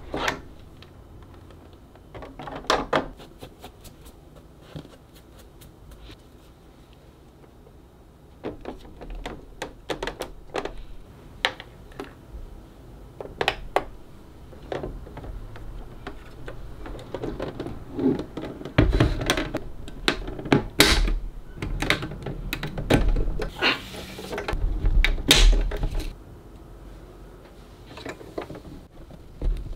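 Clear hard-plastic lightstick carrying case being handled, the lightstick set into its moulded tray and the case shut: a string of irregular plastic clicks and knocks, busiest in the second half.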